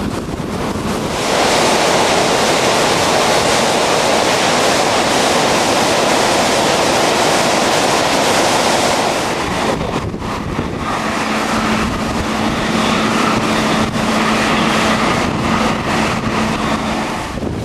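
Hurricane wind and rain rushing over the microphone, a loud even roar that breaks off suddenly about ten seconds in. A somewhat quieter rush follows, with a steady low hum under it.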